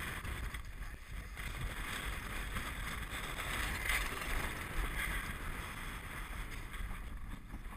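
Wind rumbling on the microphone with the hiss and splash of water rushing past a Farr 30 racing yacht's hull as it sails, a little louder about four seconds in.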